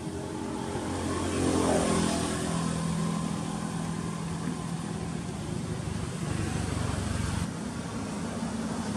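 A motor vehicle's engine running, loudest about two seconds in, where its pitch slides as it goes by; the engine hum carries on more steadily afterwards.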